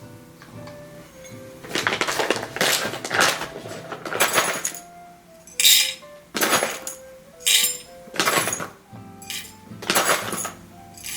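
Background music with a series of short, irregular clinks and clatters from coffee equipment being handled, about a dozen of them from about two seconds in.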